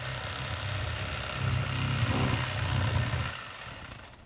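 Rapala electric fillet knife running, its motor buzzing as the blades slice into a bluegill behind the fin. The buzz grows louder in the middle and stops shortly before the end.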